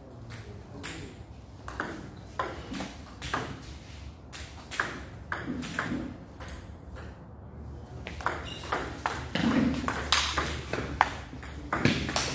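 Table tennis ball clicking off the players' paddles and bouncing on the table during rallies, a quick series of sharp ticks. The ticks thin out in the middle and come thick again after about eight seconds.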